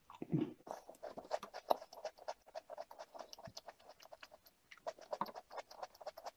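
Someone chewing and breaking apart a crunchy iced biscuit close to the microphone: a steady run of small, irregular crunches and crackles.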